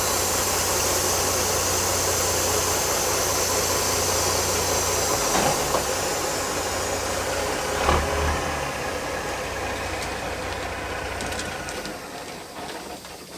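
A semi truck's diesel engine running steadily, with two short knocks about five and eight seconds in; the engine sound fades away near the end.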